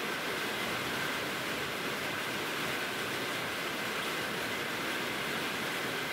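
Steady rain falling on the shelter roof overhead, an even, unbroken hiss.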